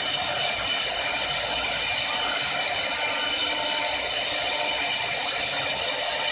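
4-axis CNC woodworking lathe running and machining wood: a steady whine of several tones over a continuous hiss, unchanging throughout.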